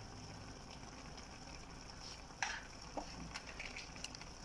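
Chicken stew sizzling in a frying pan on a gas stove, a steady faint hiss, with a couple of short knocks about halfway through.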